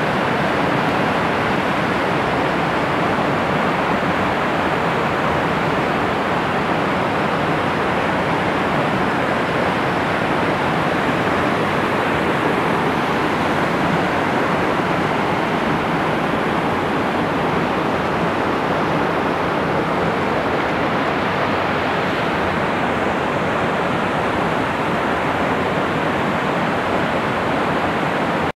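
Kamieńczyk mountain waterfall rushing steadily: a continuous, even hiss of falling water.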